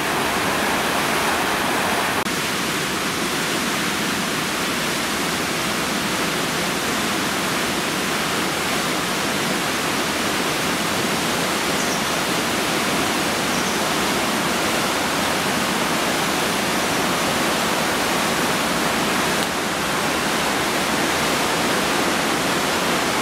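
A river in spate after heavy rain: swollen floodwater rushing through a stone bridge arch and pouring over a weir, a steady, even rush of water. The character of the rush shifts slightly about two seconds in.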